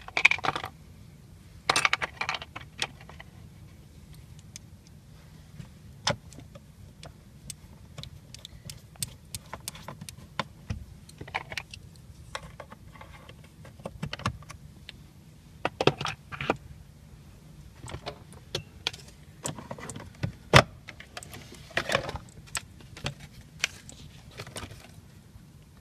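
Scattered clicks, taps and small rattles of tools, a screw and plastic dash trim being handled and fitted back in place, over a low steady hum.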